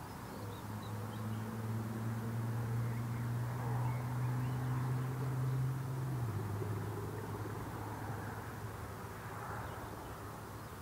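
Distant drone of a Class 20 diesel locomotive's English Electric 8SVT engine, a steady low note that drops abruptly to a slightly lower, quieter note about six seconds in. Faint bird chirps sound over it.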